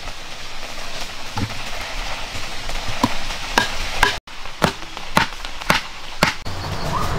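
A string of sharp blows of wood striking wood, such as a wooden stake being pounded or chopped: one knock, then a steady run at about two a second.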